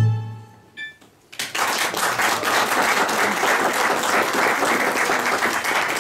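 A held note of backing music fades out at the start, and about a second and a half in an audience breaks into steady applause that continues.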